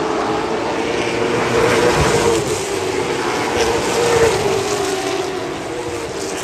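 Late model stock car's V8 engine running at racing speed, its pitch rising and falling slightly.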